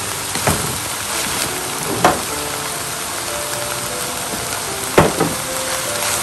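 Ground pork and diced vegetables sizzling as they are stir-fried in a pan, with a wooden spatula knocking against the pan four times, the loudest about five seconds in. Quiet background music runs underneath.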